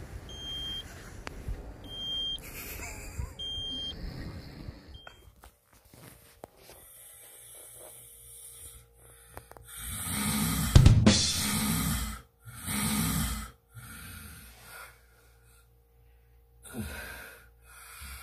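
A car's door-open warning chime beeps four times, about a second apart. After a pause, loud snoring starts about ten seconds in, a few heavy rasping breaths, with fainter ones near the end.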